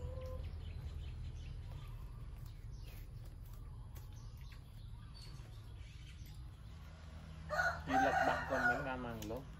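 A rooster crows once near the end, one long call that falls in pitch as it trails off, over a steady low hum.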